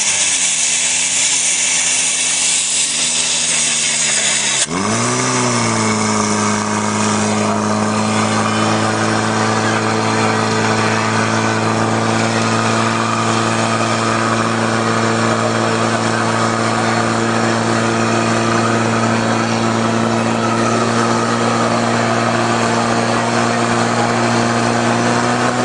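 Portable fire pump's small petrol engine running at high revs while it pumps water through the attack hoses. About four and a half seconds in the sound breaks off, swings up in pitch, then settles into a steady high drone.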